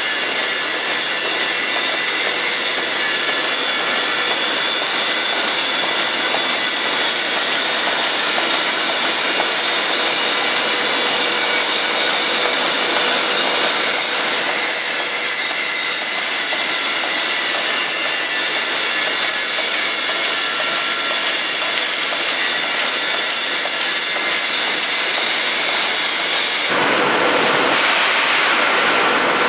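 Rotary die cutter for corrugated cardboard running steadily, its rollers feeding printed carton blanks through, with a continuous mechanical drone and whine. About 27 seconds in the noise turns fuller and slightly louder.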